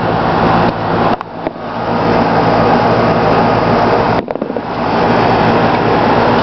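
High-voltage arc from a pole-pig transformer supply buzzing and hissing steadily with a mains hum, as it is drawn from a loudspeaker. It drops out briefly about a second in and again about four seconds in.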